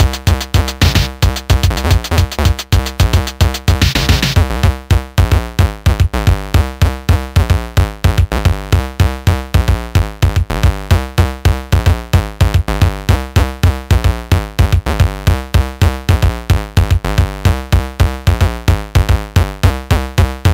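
Electronic background music: a drum-machine beat with synthesizer, keeping a fast, steady rhythm.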